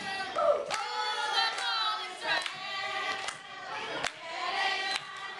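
A group of children singing together, with sharp hand claps now and then.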